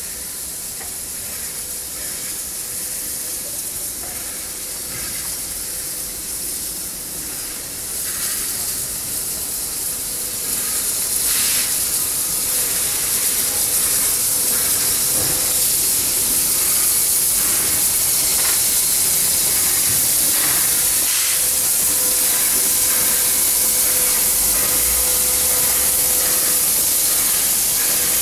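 Victorian Railways R-class 4-6-4 steam locomotive R766 moving slowly with a steady hiss of escaping steam. The hiss grows louder about ten seconds in as the engine draws level, with a few faint clanks.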